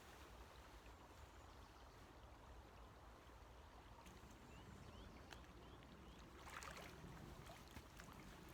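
Faint water sounds of a Brown's bag, a cloth coarse-filter bag, being soaked and filled in a river, with a brief, slightly louder splash about six and a half seconds in.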